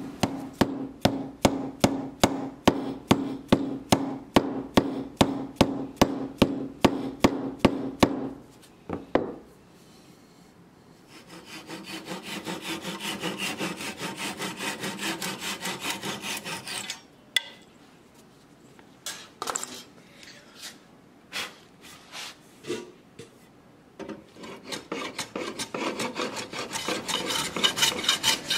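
Hand-tool work on wood: even back-and-forth strokes, about two and a half a second, then a couple of knocks and a short lull. A handsaw cuts fast and steadily through a small piece of wood clamped in a vise, followed by a few scattered light taps, and the strokes start up again near the end.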